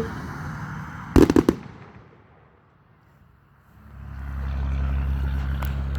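Aerial firework shells bursting in a quick cluster of four or five sharp bangs about a second in, fading out within half a second. A steady low hum begins about two-thirds of the way through.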